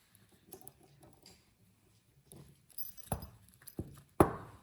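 Small engine parts being handled: a few light clicks and knocks, the loudest a sharp knock near the end.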